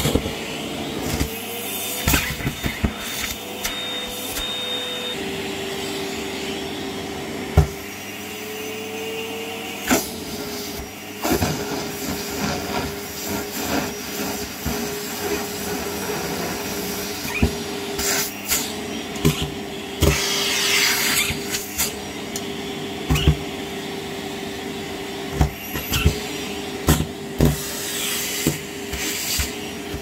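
Kärcher WD 6 P wet/dry vacuum running steadily, its motor tone dipping and rising slightly as the nozzle takes up debris. Crumpled tissues and plastic wrap crackle and rattle as they are sucked into the hose, in many short clicks.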